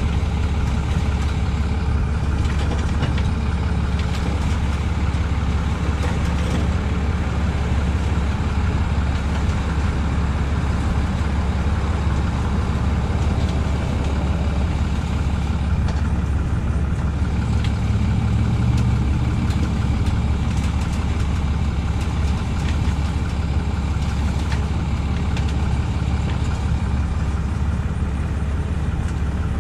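Truck engine idling steadily, a constant low hum with no revving.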